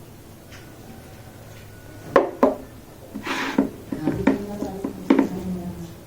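Clinks and knocks of dishes and utensils being handled: a quiet start, then about half a dozen sharp knocks over the last four seconds, some with a brief ring.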